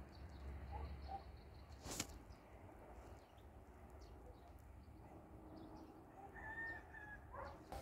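Faint outdoor ambience with a low rumble, a few faint bird calls and a single sharp click about two seconds in.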